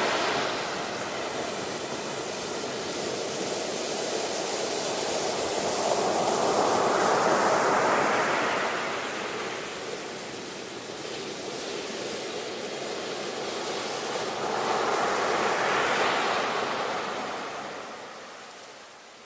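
Ocean waves breaking and washing in, swelling loudest about seven seconds in and again around sixteen seconds, then easing off near the end.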